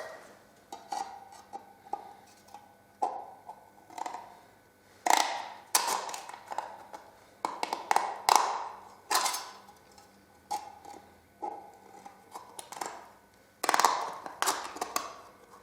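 Thin tin can being cut into in several places: a series of sharp metallic snips and clinks, about one a second, each ringing briefly.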